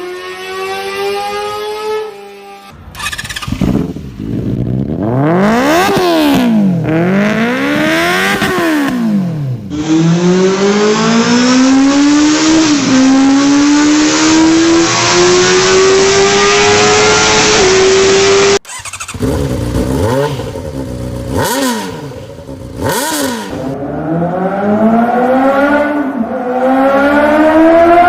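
600cc inline-four sport-bike engines revving hard, the sound cutting abruptly from one bike to the next. There are quick throttle blips that rise and fall in pitch. One long pull climbs steadily for about eight seconds with a brief dip partway, as in a dyno run, and near the end more blips are followed by another climbing rev.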